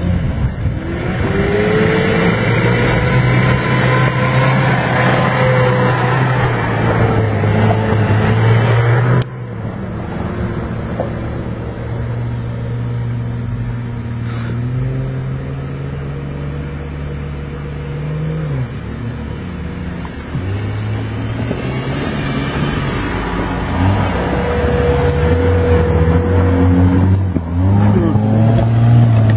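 Engines of 4x4 off-road vehicles crawling up a rocky track one after another, revving up and dropping back in pitch as they climb. The sound drops suddenly about nine seconds in. The engine of a lifted Jeep Cherokee passing close is loudest near the end.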